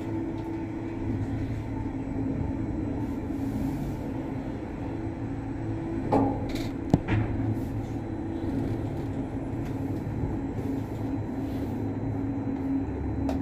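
Steady mechanical hum of crane machinery lifting a rebar load, with a few held low tones. A short rising squeak comes about six seconds in, followed by a sharp click.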